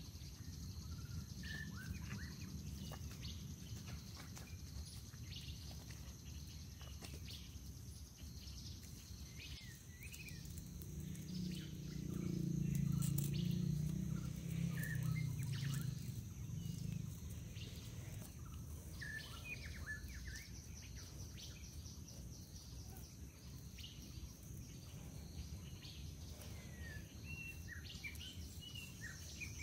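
Outdoor ambience of scattered bird chirps and a steady high insect whine, with soft sounds of wet mud being packed by hand onto a bamboo frame. A louder low noise swells for a few seconds near the middle.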